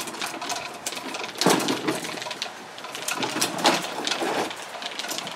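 Plastic toy wagon being pulled and pushed over brick pavers, its hard plastic wheels and body rattling and clattering, louder about a second and a half in and again near the middle.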